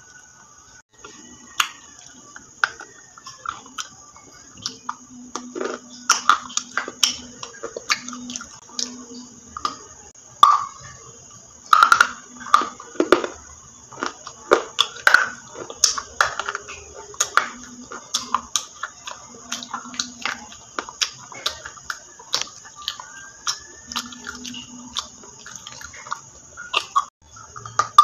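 Close-miked chewing of crunchy food: an irregular run of sharp, crisp cracks and clicks, several a second, getting denser and louder after the first few seconds.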